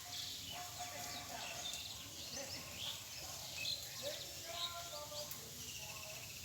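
Small birds chirping outdoors: many short, quick chirps and calls overlapping one another, over a steady low background noise.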